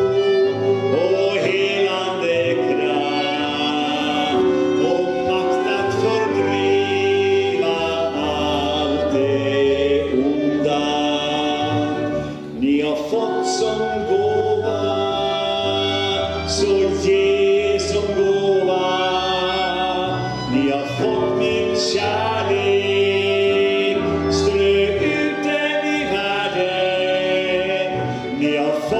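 A Swedish song sung with accompaniment of flute, violin and bass, the bass holding low sustained notes under the melody.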